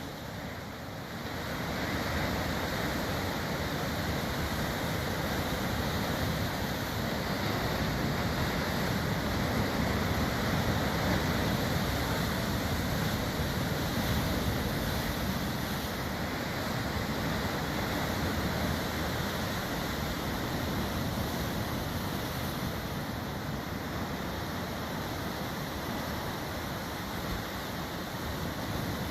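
Sea surf washing onto a beach, a steady rush that swells a little midway.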